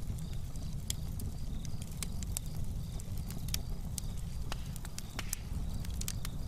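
Title-sequence sound effects: a steady low rumble with scattered sharp crackles and clicks.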